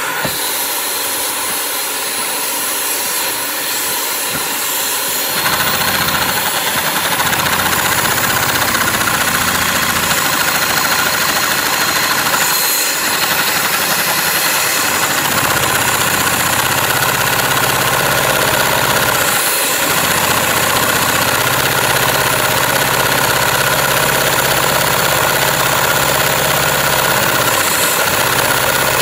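Steady loud rush of air from a hose nozzle held to a Lego two-cylinder butterfly-valve engine, driving it; about five seconds in a lower rumbling hum joins as the engine runs, with a few brief dips in the air flow.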